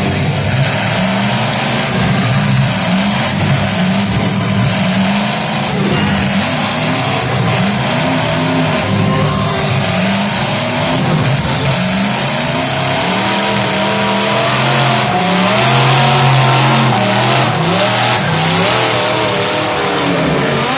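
Several demolition derby cars' engines running hard together, revving up and down and overlapping as they rise and fall in pitch, over a dense exhaust roar.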